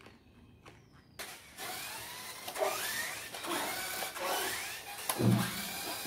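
Small electric motor of a homemade remote-control monster truck whirring into motion about a second in, its pitch rising and falling as it drives. There is a thump near the end.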